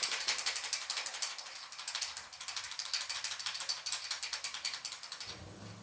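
Rapid metallic clicking from a roller rocker arm and adjustable pushrod length checker being worked to feel for valvetrain play while the poly lock is snugged down on a small-block Chevy cylinder head. The clicking grows fainter and stops about five seconds in as the play is taken up.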